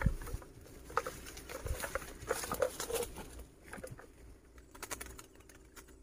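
Leafy branches and twigs rustling and crackling irregularly as someone moves and works among them, busiest in the first three seconds and then sparser.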